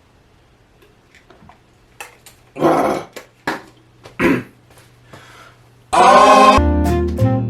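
Near-quiet room tone, then a few small clicks and two short throaty vocal sounds. About six seconds in comes a loud voiced cry, and music with a plucked-string melody and a steady bass line starts straight after it.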